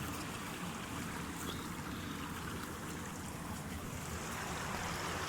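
Waterfall on a small river: a steady rush of falling water.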